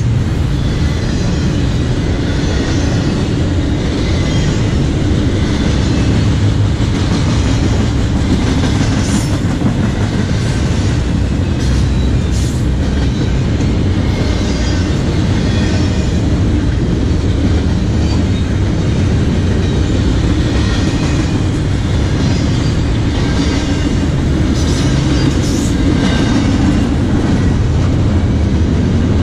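Double-stack intermodal container well cars of a CSX freight train rolling past on the rails: a loud, steady noise of steel wheels on track that does not let up.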